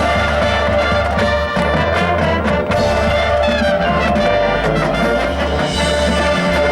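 Marching band playing a brass-led passage at full volume, trumpets and trombones holding chords over a steady low bass.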